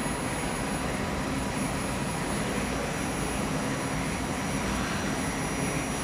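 Steady machinery noise, a constant hum and hiss with a few faint steady tones. It does not change as the robot arm moves down and touches the banana.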